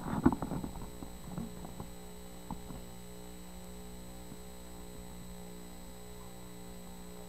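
Steady electrical mains hum, with a few soft clicks and knocks during the first couple of seconds, then only the hum.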